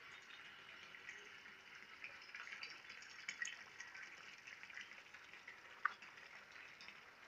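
Faint trickle of water in a concrete catfish pond, a soft steady hiss with scattered small drip-like ticks.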